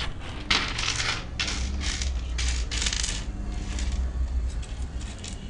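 Small stones and seashells clattering and clinking together as they are handled and sorted by hand: dense rattles through the first three seconds, then a few scattered clicks.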